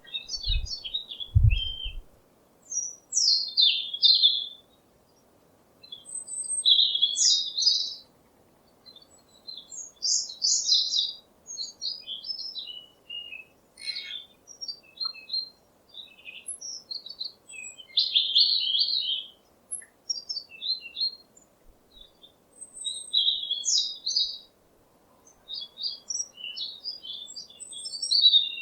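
Birds chirping in short, rapid, high-pitched twittering phrases about a second long, separated by pauses of one to two seconds. A few low thumps come in the first two seconds.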